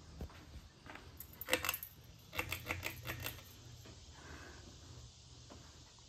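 Pull-chain switches on a Crest 2000 series ceiling fan clicking as the chains are pulled: a few single clicks, then a quick run of clicks a couple of seconds in. After that the fan's motor runs with a faint steady hum as the blades start turning.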